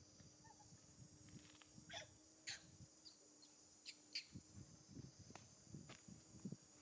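A few short, high squeaks from a macaque, clustered in the middle seconds, over a steady insect drone and soft rustling on gravel.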